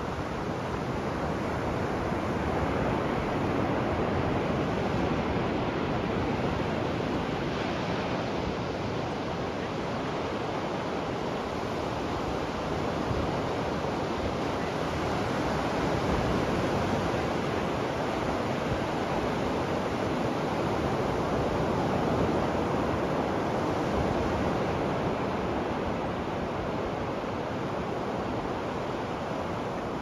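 Ocean surf on a beach: a steady rushing wash of waves breaking and running up the sand, swelling and easing slowly a few times.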